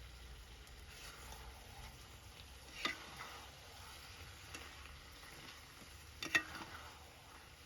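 Chicken curry frying and being stirred in a pot, with a faint sizzle throughout. The stirring utensil knocks sharply against the pot twice, about three seconds in and again near the end.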